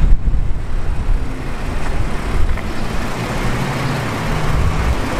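Steady low rumble of motor vehicles, with a faint hum running through it.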